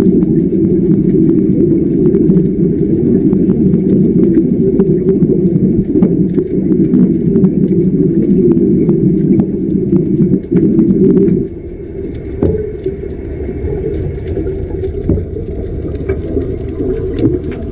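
Underwater electric arc welding: a loud, dense rumble crackling with sharp clicks, which drops off sharply about two-thirds of the way through, leaving a quieter rumble with scattered clicks.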